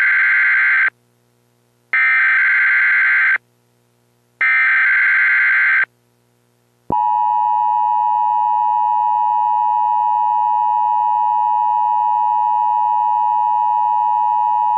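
Emergency Alert System broadcast tones: three bursts of SAME header data, each about a second and a half of rapid digital data tones, encoding a Law Enforcement Warning. About a second later the EAS two-tone attention signal starts, a steady dual tone held for about eight seconds.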